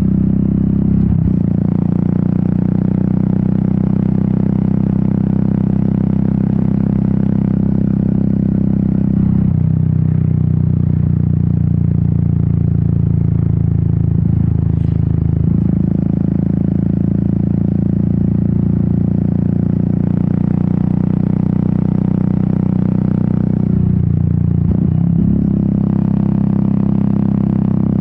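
Royal Enfield Meteor 350's single-cylinder engine and exhaust running steadily under way. The engine note changes with throttle and gear about a second in, about a third of the way through, around halfway, and again near the end.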